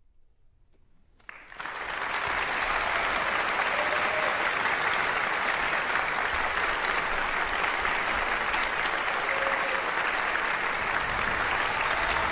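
About a second of near silence, then a concert-hall audience suddenly breaks into applause that holds steady, marking the end of the orchestral piece.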